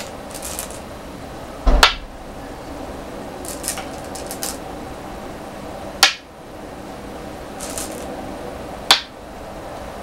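Go stones being set down on a wooden go board: three sharp clacks, each with a brief ring, roughly three seconds apart.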